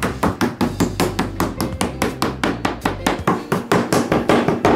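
Stainless-steel meat mallet pounding a slice of raw pork on a bamboo cutting board in steady, even strikes, about four a second, flattening the meat for a cutlet.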